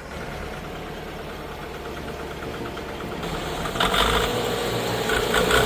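An engine running steadily with a fine, even pulse, getting louder about four seconds in.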